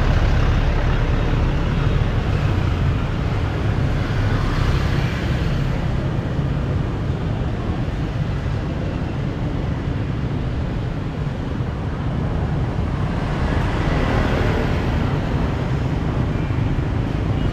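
Street traffic noise: a steady rumble of passing vehicles, with two louder passes about four seconds in and again near fourteen seconds.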